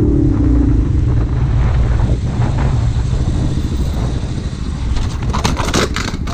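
Motorcycle engine rumbling low and steady, then a quick burst of sharp clattering and scraping about five seconds in: a Honda Grom going down on the pavement after a stoppie.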